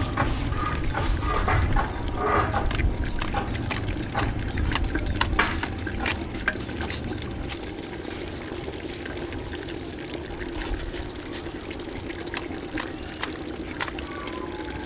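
Chicken curry with tomatoes sizzling and bubbling in an earthen clay handi over a fire, with frequent sharp crackles over a steady hiss. It is somewhat louder in the first half.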